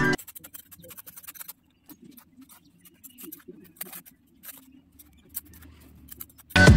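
Fingers digging and scraping in damp sand: a run of small, gritty scratches and clicks over a faint low murmur. Background music starts up near the end.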